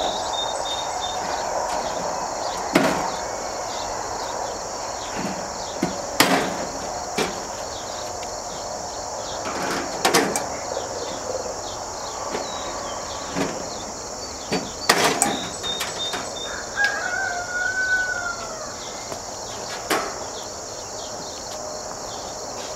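Scattered sharp clicks and knocks as a sheet-metal chicken nest box is handled and its zip ties cut, over a steady chorus of crickets. A rooster crows once about seventeen seconds in.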